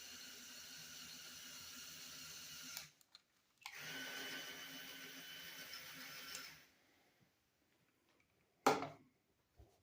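Small electric motor whining steadily as it drives the gears of a Lego Technic model. It runs for about three seconds, stops briefly, then runs again for about three seconds. A single brief, loud sound comes near the end.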